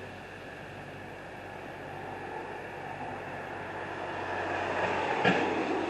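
A vehicle going by on the street, its noise swelling and then easing, over a steady low engine hum. A single sharp clank comes just over five seconds in.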